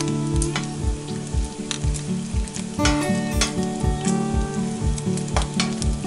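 Bacon sizzling and frying in a cast iron skillet, with a few sharp pops of spitting grease. Background music with a steady beat plays throughout.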